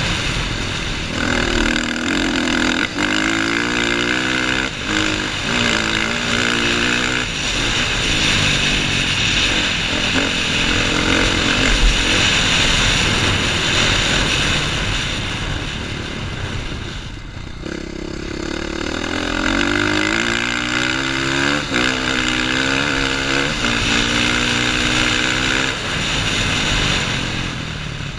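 KTM 450 XC-F dirt bike's four-stroke single-cylinder engine under hard acceleration, its pitch climbing and dropping back with each gear change in two spells of throttle, with a brief easing off about two-thirds of the way through.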